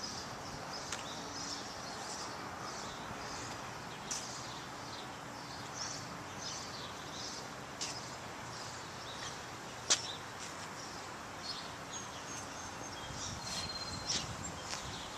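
Outdoor ambience: many short, high bird chirps over a steady background hiss, with one sharp click about ten seconds in.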